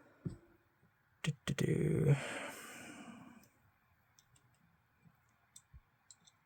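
Small clicks and light ticks of small knife screws and metal parts being handled on a work surface. A louder burst of handling noise comes about two seconds in, and scattered faint ticks follow.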